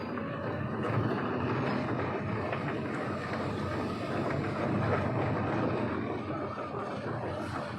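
Road traffic passing slowly: vehicle engines rumbling steadily with tyre noise, louder from about a second in.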